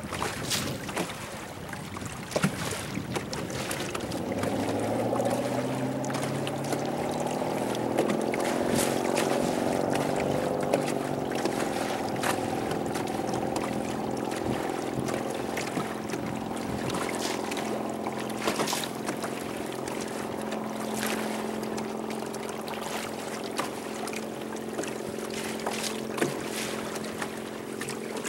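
Boat motor speeding up about four seconds in, then running at a steady pitch, with the hull slapping through choppy water and wind on the microphone.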